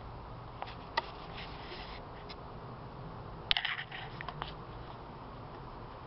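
Handling noise from a handheld camera being moved: a couple of sharp clicks about a second in, then a cluster of clicks and rustling around the middle, over a steady low background noise.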